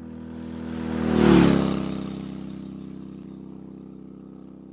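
A motorbike engine passing by: it swells to a loud peak a little over a second in, its pitch bending as it goes past, then fades away slowly.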